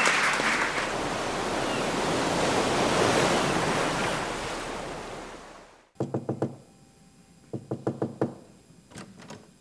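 Audience applause fading out over the first six seconds. After a sudden cut come quick runs of sharp knocks on a door, a sound effect, in two bursts and then one last knock near the end.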